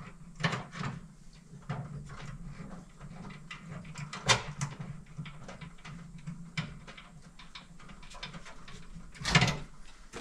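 Small metal clicks and taps from tightening a small bolt and nut through a bracket bar on a sheet-metal swamp cooler vent, with louder knocks about 4 s in and again near the end, over a low steady hum.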